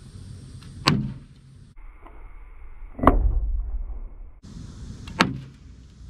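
Three sharp knocks of a training arrow hitting a car door: one in real time about a second in, a slowed-down replay of the same hit near the middle that sounds deeper and drawn out, and a third hit near the end.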